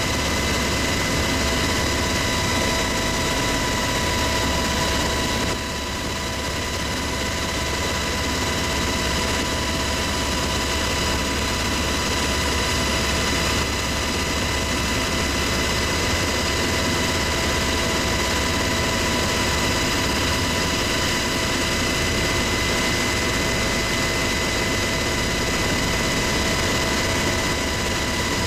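Steady cabin noise inside a UH-60 Black Hawk helicopter in flight: a deep drone with a high, steady whine of several tones over it.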